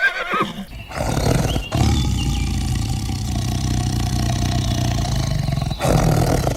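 A large animal's loud, low call, held at a steady pitch for about four seconds after a shorter lead-in.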